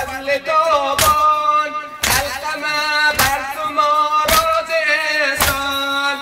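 A young man's voice chanting a Persian noha, a Muharram lament, through a microphone, each phrase held long and melodic. Sharp slaps of the mourners' chest-beating (matam) keep time about once a second.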